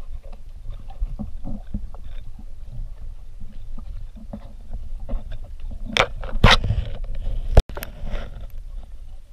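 Water splashing from people swimming, over a steady low rumble, with two louder splashes about six seconds in and a sharp click just after.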